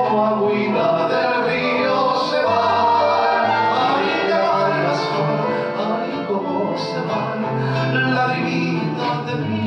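Live acoustic music: an acoustic guitar playing an instrumental passage of a slow song, over long held low notes.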